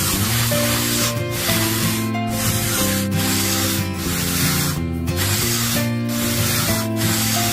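Small trowel scraping and smoothing wet cement in repeated strokes, about one a second, over background music.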